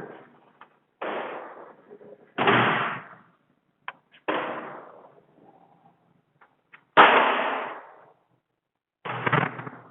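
A window's lock and frame being worked: five clacking, rattling knocks, each dying away over about a second, with a few small clicks between, the loudest about seven seconds in.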